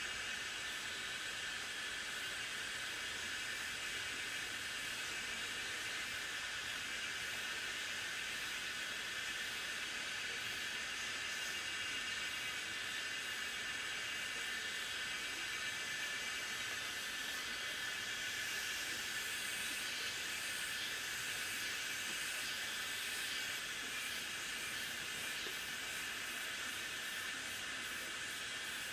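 A steady, unbroken hiss, like air or spray escaping under pressure.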